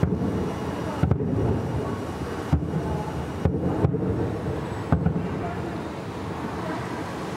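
Distant fireworks salute: about seven dull booms from shells bursting, spread unevenly over the first five seconds, then stopping, over a steady low rumble of city background noise.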